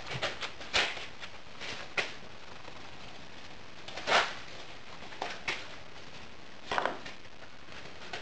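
Backing moulding sand being scooped and tipped into a wooden moulding flask: a series of short, irregularly spaced scrapes and rustles, the loudest about four seconds in.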